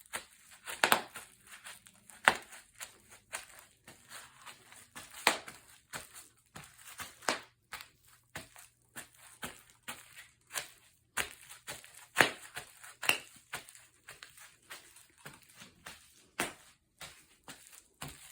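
Bubble wrap being stepped on: irregular popping of air bubbles under foot with plastic crinkling, a few pops much louder than the rest.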